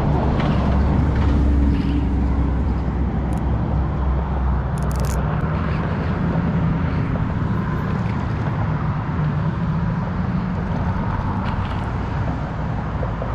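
A steady low motor rumble over a constant rushing noise; the rumble's hum fades about five seconds in.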